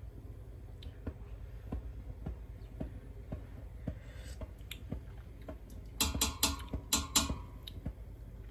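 A person tasting pickling brine from a spoon: a short slurp, then a quick run of sharp lip and tongue smacks about two seconds later.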